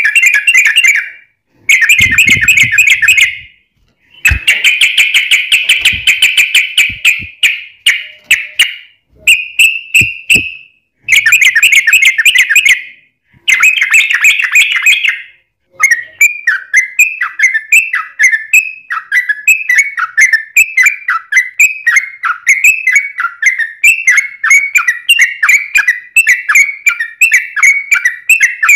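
Yellow-vented bulbul (trucukan) singing loudly. It gives fast chattering phrases of one to two seconds with short gaps, then, about halfway through, one long unbroken run of quick falling notes: the long continuous song that keepers call ropel panjang.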